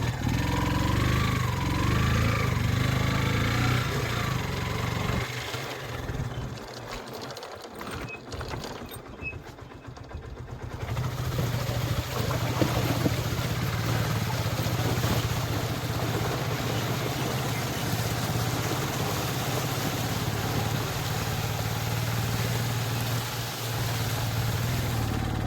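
A vehicle engine running steadily. It drops away for several seconds a little after the start, then comes back.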